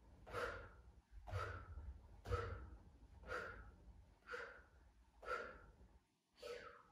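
A woman breathing out sharply in a steady rhythm, about one breath a second, seven in all. The breaths keep time with her arm pumps in a Pilates abdominal exercise.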